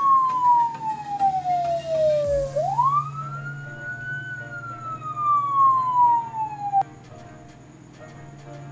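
Police siren wailing: one tone falls slowly, sweeps quickly back up, falls slowly again, then cuts off suddenly about two-thirds of the way through. A steady low hum runs beneath it.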